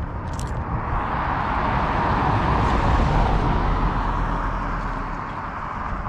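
A car driving past, its tyre and road noise swelling to a peak about halfway through and then fading away.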